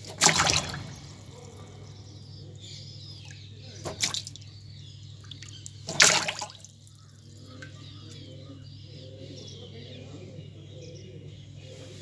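A small water bird splashing in a plastic tub of water: three sharp splashes, one right at the start, one about four seconds in and the loudest about six seconds in.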